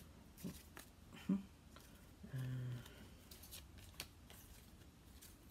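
Trading cards being handled and flipped over: faint clicks and slides of card stock. A short hummed 'mm' from a voice a little over two seconds in.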